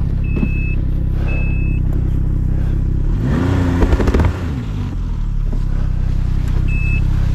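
Snowmobile engine running, revving up about three seconds in and dropping back a second later as the sled is worked free in shallow snow over rocks. Short high beeps repeat about once a second in the first two seconds and again near the end.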